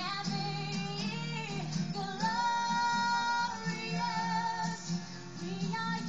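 A woman singing a pop melody live over acoustic guitar accompaniment, in an unplugged arrangement, holding one long note around the middle.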